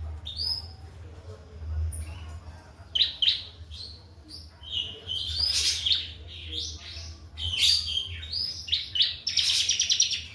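A songbird singing a long, varied run of chirps, whistled glides and short trills, ending in a rapid rattling trill. A steady low hum lies underneath.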